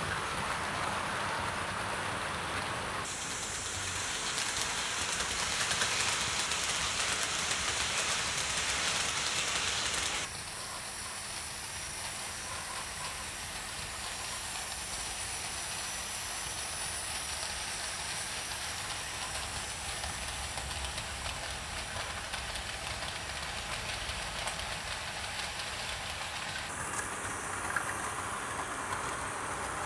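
OO gauge model trains running on the layout track: a steady running noise of small motors and wheels on the rails. It changes abruptly in level and tone three times, about 3, 10 and 27 seconds in.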